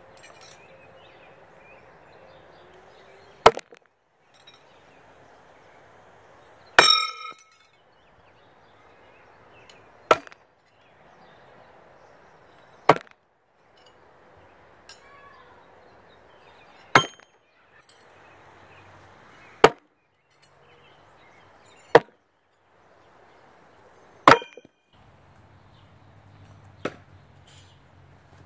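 Throwing knives hitting a wooden target round one at a time: about nine sharp thuds, two to three seconds apart. The hit about seven seconds in rings out with a metallic clang.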